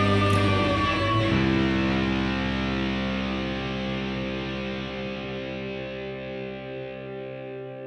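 Background music led by electric guitar: a final chord about a second in, left to ring and fade slowly.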